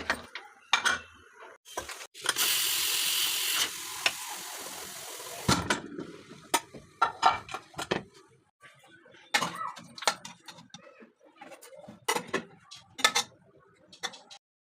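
Kitchen utensils and cookware clattering and knocking, with a loud hiss about two seconds in that drops off after a second and a half and fades out a couple of seconds later.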